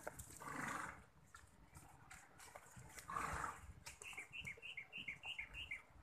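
Horse snorting twice: one short blast right away and another about three seconds in. A run of short high chirps follows near the end.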